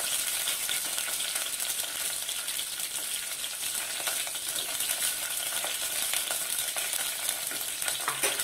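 Green chillies and onion pieces sizzling in hot oil in an aluminium pot, a steady crackling hiss, with a few light clicks near the end.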